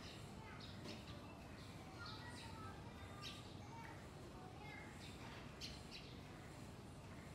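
Small birds chirping: many short, high calls scattered throughout, faint, over a steady background hum.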